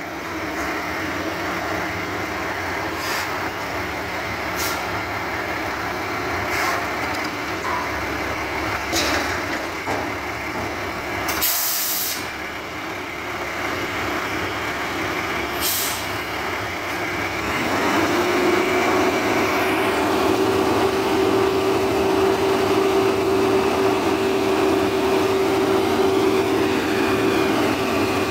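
Heil Half/Pack Odyssey front-loader garbage truck running, with several short air-brake hisses, the loudest a little before halfway. About two-thirds of the way in the engine speeds up and a steady whine sets in and holds, as the truck's forks work the dumpster.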